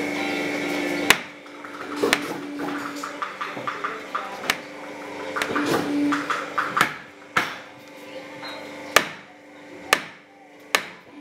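Hand hammer knocking in a workshop: about eight sharp, irregular blows, with quicker light tapping around the middle.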